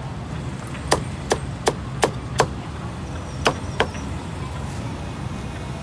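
Cleaver chopping roast pork belly on a thick round wooden chopping block. Five quick strokes come at about three a second, then two more after a short pause, over a steady low hum.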